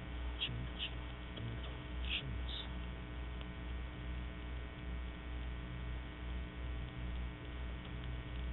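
Steady electrical mains hum with its stack of overtones, the background of an old recording, with a few faint short blips in the first few seconds.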